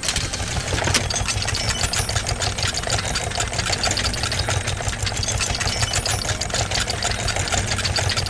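Engine of heavy quarry machinery running steadily, with a fast, dense rattling clatter over a low hum.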